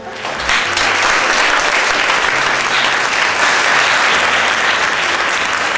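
Audience applauding, the clapping swelling within the first half-second and then holding at a steady level.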